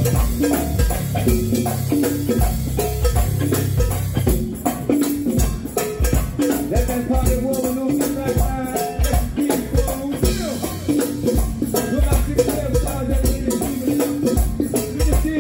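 Live go-go band playing a funk groove: drums and hand percussion keep a steady beat under electric guitar, horns and a lead vocal.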